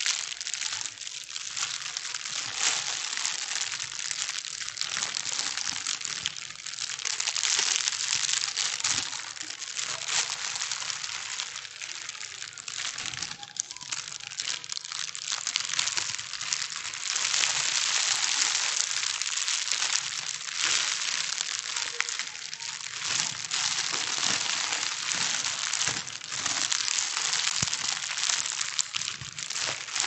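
Thin plastic bags being crumpled and rustled continuously: a dense, uneven crinkling made of many fine crackles, high and hissy, swelling and easing a little from moment to moment.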